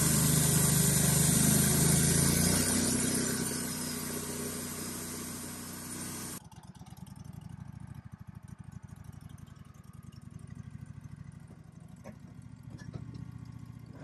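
Wood-Mizer band sawmill's engine running loud, its note shifting and easing off a few seconds in, likely working a cut through a maple log. About six seconds in it cuts off abruptly to a quieter, even idle.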